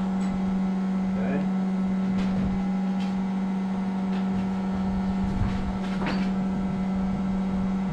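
A steady, even hum from a running machine, with a few short knocks scattered through it.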